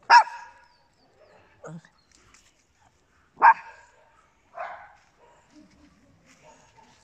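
A small dog barking: two loud, sharp barks about three and a half seconds apart, with quieter, shorter yaps between and after them.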